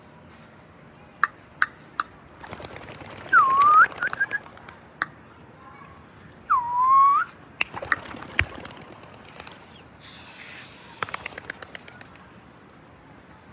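A pigeon keeper whistling to rooftop pigeons: two short swooping whistles that dip and rise, then one higher, held whistle, with the flutter of wings as birds lift off. Three sharp clicks come just before the first whistle.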